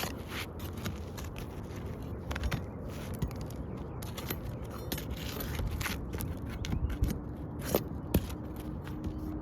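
Irregular scraping and crackling on asphalt roof shingles, with scattered clicks and two sharper clicks near the end, over a steady low rumble.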